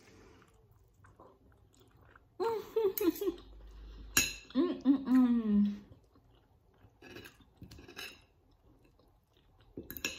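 Knife and fork clinking and scraping on a plate, with chewing. A woman's voice comes in about two and a half seconds in for a few seconds, ending in one long falling sound.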